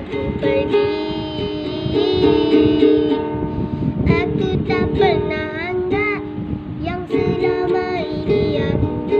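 A child singing while strumming chords on a small acoustic guitar, the sung phrases breaking off and resuming over steady strumming.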